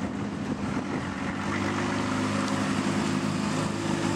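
Turbocharged Volvo wagon's engine running under steady throttle as the car drives toward the microphone, its note holding an even pitch and growing slightly louder.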